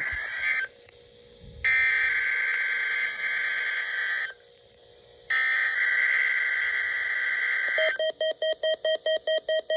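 NOAA Weather Radio SAME digital header for the Required Weekly Test: harsh, screechy data bursts separated by about a second of silence, one ending under a second in and two more of about two and a half seconds each. About eight seconds in, rapid alert beeping starts, about six beeps a second.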